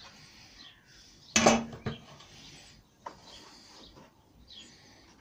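A steel square set down with a single clatter and a brief ring, about a second and a half in. Faint bird chirps come and go in the background.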